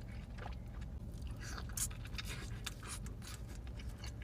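Close-miked chewing of a carne asada taco, with scattered short mouth clicks and smacks.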